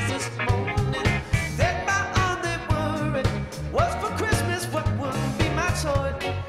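Live band playing an upbeat groove on drum kit, bass, electric guitar and keyboards, with a lead part of notes that bend and glide in pitch over a steady beat.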